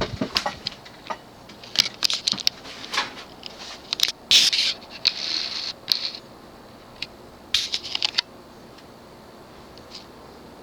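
Hunter Innova ceiling fan switched up to medium speed: a string of clicks and brief rattles from the pull chain and handling for about eight seconds, then the fan's 172x12 motor running with a faint steady hiss and a thin high tone.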